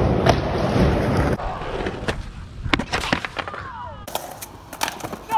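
Skateboard wheels rolling loudly on a ramp, cut off abruptly about a second and a half in. After that come quieter stretches with scattered sharp clacks and knocks of a skateboard on concrete.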